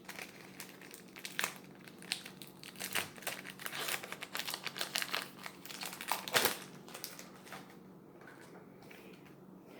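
Foil Pokémon booster pack wrapper crinkling and rustling as it is handled and opened, in a dense run of crackles with one louder crackle about six seconds in, then dying away near the end.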